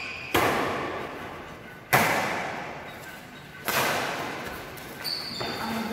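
Badminton rackets striking a shuttlecock in a rally: three sharp hits about a second and a half apart, each with a long echo, and a fainter knock near the end.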